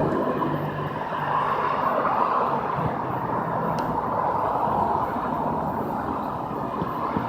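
Steady noise of passing vehicle traffic, with no clear single event standing out.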